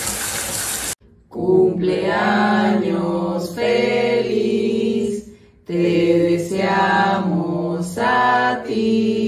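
Running shower water hissing for about a second, then a sudden cut to a woman singing slow, long-held notes in two phrases with a short break between them.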